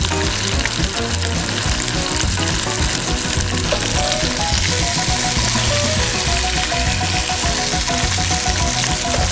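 Food sizzling steadily as it fries in a hot pan, with quiet background music playing underneath.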